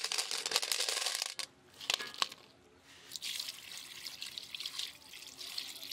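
Snails clattering from a bamboo basket into an aluminium pot, their shells rattling against the metal. From about three seconds in, coconut water pours from a fresh coconut into the pot, splashing over the snails.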